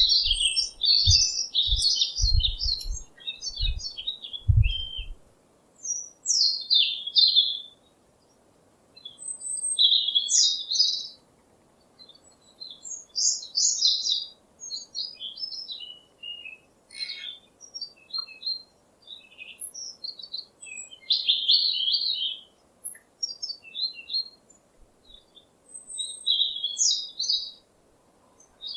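Songbirds chirping and singing in short, high-pitched phrases separated by brief pauses, with a few low thumps in the first five seconds.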